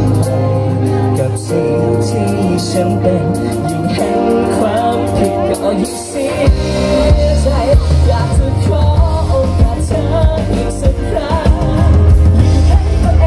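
A live pop-rock band plays through a PA, with electric bass, electric guitar and keyboard, and a lead vocal. The low end thins out briefly in the middle. About six and a half seconds in, the full band comes back with drum hits and the singing.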